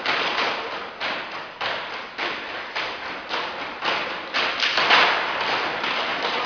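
Repeated knocking, about two sharp knocks a second in a steady rhythm, crowding closer together and louder about two-thirds of the way through.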